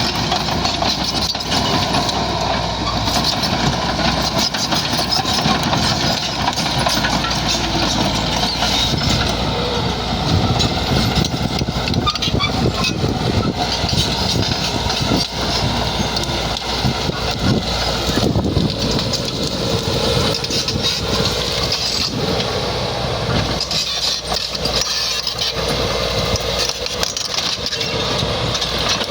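Bulldozer's diesel engine running steadily under load while clearing land, with frequent knocks and clanks over the engine sound.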